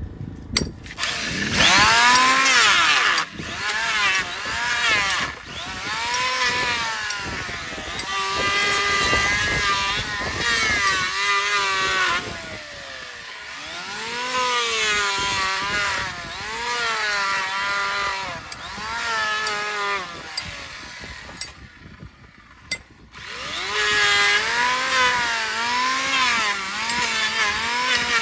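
Electric hoof trimmer cutting down a mule's overgrown hoof horn. Its motor's pitch sags under load and recovers again and again as it takes pass after pass. It eases off briefly near the middle and almost stops about three-quarters of the way through before cutting again.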